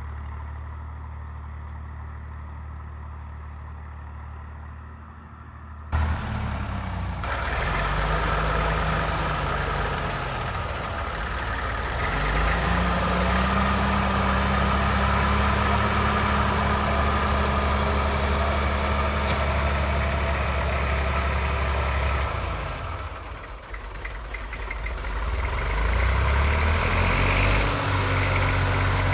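IMT 542 tractor's three-cylinder diesel engine running at low revs, then suddenly louder about six seconds in, its revs climbing and then holding steady. About three-quarters of the way through the revs drop briefly, then climb again.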